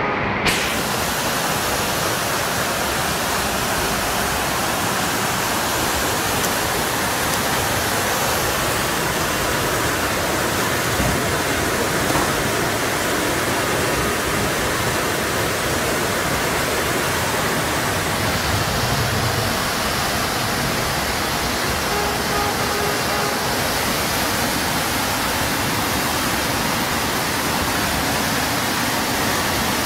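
Muddy flash-flood water rushing down a street in a steady, unbroken torrent.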